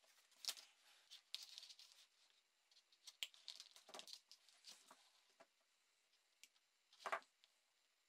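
Faint handling sounds of a 3D-printed plastic panel and a thin cable being handled: scattered soft clicks and rustles, the sharpest one about seven seconds in.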